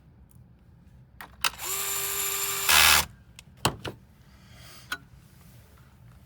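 Electric screwdriver running for about a second and a half with a steady whine, growing louder just before it stops, as it drives a screw into the computer's chassis; a few sharp clicks follow.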